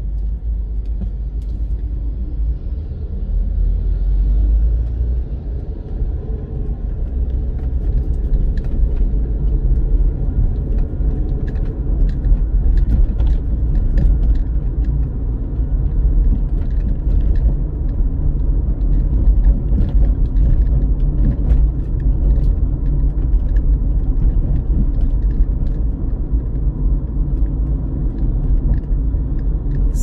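Car driving on city streets: a steady low road rumble, with scattered light clicks.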